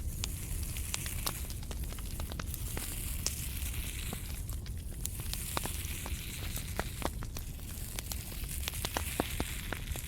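Close-miked crackling: irregular sharp clicks and crackles over a steady hiss and low rumble.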